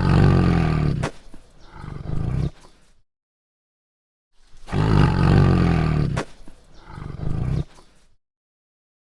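A large animal roaring twice, the same way each time: a long, low roar followed by a shorter one, with about a second of silence between the two.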